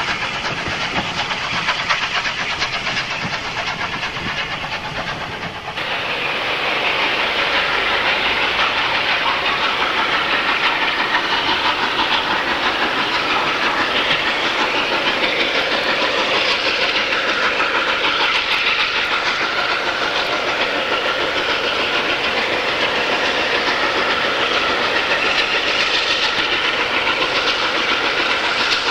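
Unrebuilt Bulleid Battle of Britain class three-cylinder 4-6-2 steam locomotive and its train: coaches running past, then, from a cut about six seconds in, the locomotive approaching under steam, its exhaust and running noise louder and steady.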